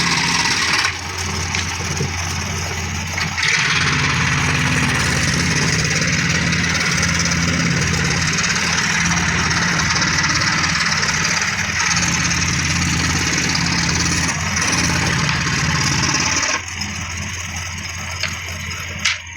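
Electric power tool running steadily while cutting wood, a motor hum under a hiss of cutting noise; the noise eases briefly near the start and falls away about 17 seconds in.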